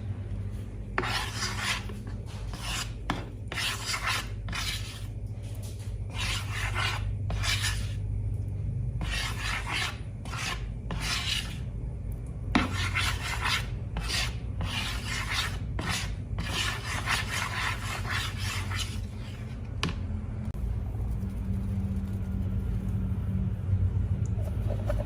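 Slime being scraped and rubbed in a long series of irregular rasping strokes, each under a second to about a second long.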